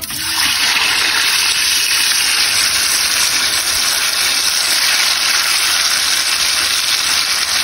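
Tofu cubes going into hot oil in a wok and frying, a loud, steady sizzle that starts suddenly as they hit the oil.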